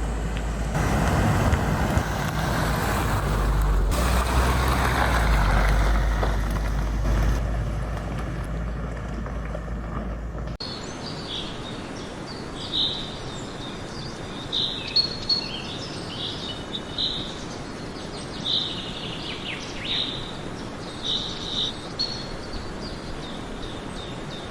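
A car driving: a steady low rumble with road noise. About ten seconds in it cuts suddenly to birds chirping over a faint steady hiss.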